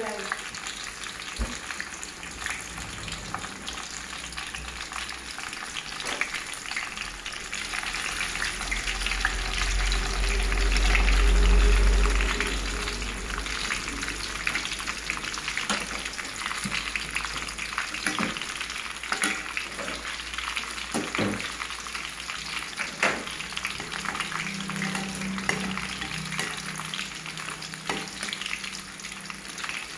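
Battered banana fritters deep-frying in a wok of hot oil: a steady crackling sizzle. A low rumble swells and fades about ten seconds in, and a few light knocks come in the second half.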